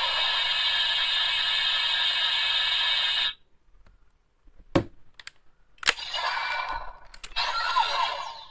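Electronic sound effects from a DX D Flasher toy's speaker: a steady hissing, many-toned effect that cuts off sharply after about three seconds. Two sharp clicks follow about a second apart, then a second burst of effects that fades near the end.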